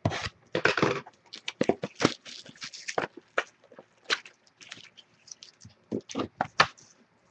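Football trading card packaging being opened by hand: a run of sharp crinkles, snaps and tearing noises as a pack's wrapper is ripped open and the cards are pulled out.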